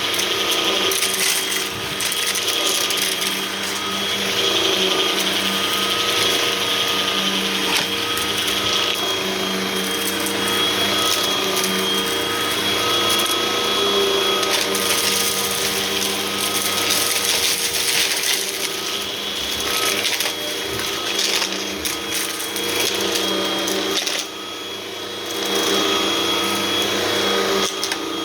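Hoover vacuum cleaner running steadily, its motor giving a constant whine over the brushroll's noise, briefly quieter near the end.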